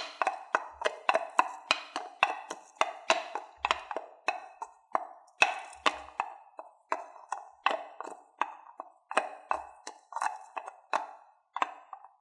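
Coconut shell halves knocked together in a steady trotting clip-clop, three to four hollow knocks a second, imitating a horse trotting on cobblestones.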